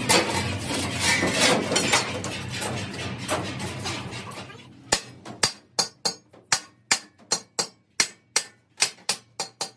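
Hammer blows on the steel dished end of an air compressor tank as it is driven into the rolled shell, sharp clanging strikes about two to three a second starting about halfway through. Before that, background music fades out.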